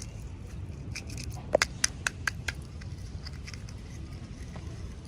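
A quick run of about six small, sharp clicks and taps over a second or so, a little after the start, over a low steady hum: packaging being handled and opened during a toy unboxing.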